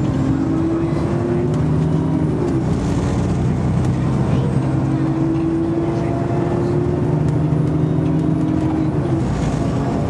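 Alexander Dennis Enviro400 double-decker bus with a Voith automatic gearbox, heard from inside: the diesel engine and gearbox pull hard and climb in pitch as the bus gathers speed. The pitch drops about two and a half seconds in as the gearbox changes up, climbs again, and drops once more near the end.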